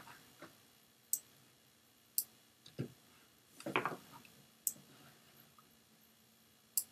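Computer mouse clicking: four short, sharp clicks a second or two apart while selecting and deleting drawings on screen, with a soft low sound about halfway through.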